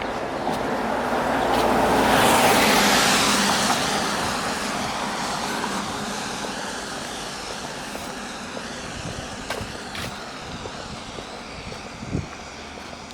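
A road vehicle passing by: its noise swells to a peak about two seconds in, then slowly fades away.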